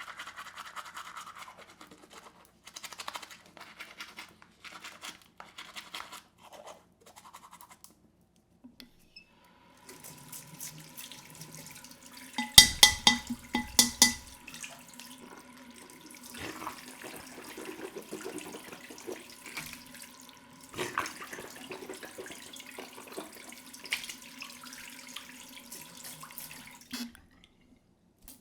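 Teeth being brushed with a toothbrush: fast back-and-forth scrubbing strokes, then a short pause. From about ten seconds in, the scrubbing goes on over a steady hum, and a burst of loud knocks comes a few seconds later. The sound stops just before the end.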